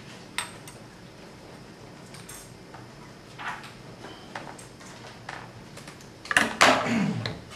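Scattered light clicks and rustles of craft materials being handled and cut with scissors, then a louder rustling scrape about six seconds in that slides down in pitch as it ends.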